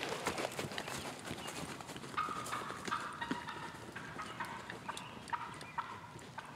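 Footsteps crunching through dry leaf litter, growing fainter as the walker moves away. From about two seconds in, faint short calls repeat a few times behind the footsteps.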